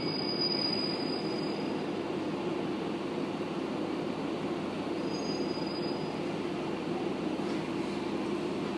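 Interior running noise of an Amagi Railway diesel railcar as it slows alongside a station platform and comes to a stop: a steady low rumble, with a faint high squeal at the start and again about five seconds in.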